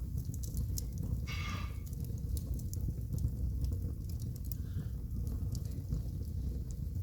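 Wood fire burning in a home fireplace with a good draft: a steady low rumble of the flames with scattered sharp crackles and pops from the logs, and a short high whine about a second in.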